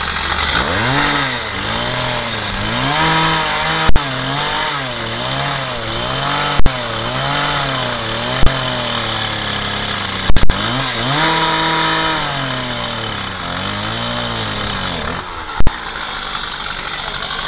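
Handheld petrol cut-off saw, a two-stroke disc cutter, running hard as its disc cuts through a metal wheel clamp. The engine pitch swings up and down about once a second over a harsh grinding hiss. About six sharp, very loud cracks break in a few seconds apart.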